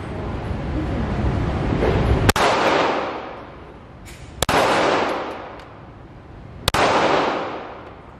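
Three pistol shots from a semi-automatic handgun, a little over two seconds apart, each sharp crack followed by a long echo off the concrete walls of an indoor range.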